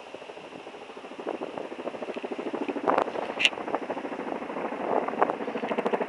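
A helicopter approaching, sounding like a big military one: its rotor blades make a fast, steady beating, a dozen or so pulses a second, that grows a little louder. A couple of sharp clicks come about halfway through.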